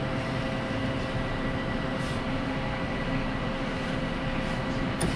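Schaerer Coffee Art Plus bean-to-cup coffee machine running steadily in its brew cycle, a continuous mechanical hum, with a short click near the end.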